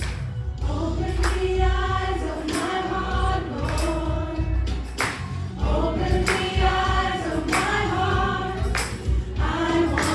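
Choir singing a gospel worship song in harmony over a live band, with a steady bass and drum strokes about once a second.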